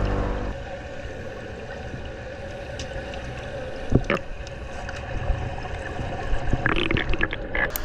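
Underwater sound in a swimming pool: a steady muffled hum and water noise, a sharp knock about four seconds in, and several short splashy bursts of water noise near the end as the diver kicks down.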